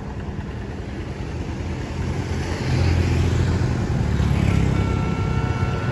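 Road traffic: a passing motor vehicle's low engine rumble, swelling about two and a half seconds in.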